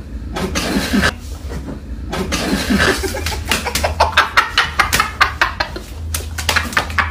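Several men stifling laughter with mouthfuls of water, then spluttering and spraying it out. From about three and a half seconds in, the spluttering comes in a rapid run of short sharp bursts.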